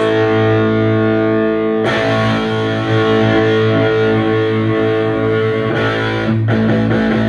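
Electric guitar played through an Orange Rockerverb 100 MKIII valve amp, loud distorted chords ringing out. A new chord is struck about two seconds in, and two more near the end.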